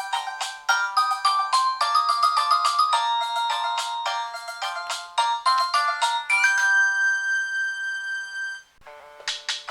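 A Nokia 3220 polyphonic ringtone played on a Nokia N73: a quick melody of short chiming notes that ends on a held chord about six seconds in. After a brief pause, the next ringtone starts near the end.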